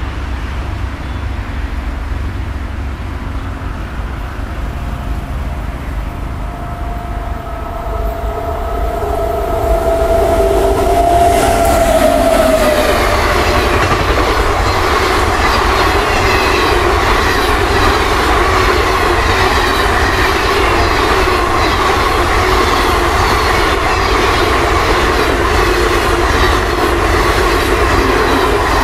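A WAP-7 electric locomotive's horn sounds one long note as the express approaches, its pitch dipping slightly as the locomotive passes about 12 seconds in. The passenger coaches then run past at speed, their wheels clattering rapidly over the rail joints with a ringing, singing rail tone.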